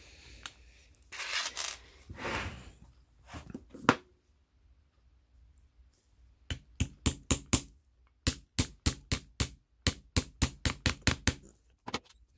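Small hammer tapping a rivet through a brass disc set on a steel anvil, in two runs of quick sharp strikes, about four or five a second, each ringing briefly off the anvil. Before the strikes, a couple of scrapes and a click as the part is slid into place on the anvil.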